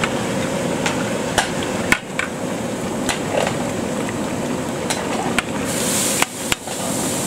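Long metal ladle stirring a large aluminium pot of boiling mutton curry, clanking against the pot about eight times at uneven intervals over steady noise from the gas burner and boiling pot.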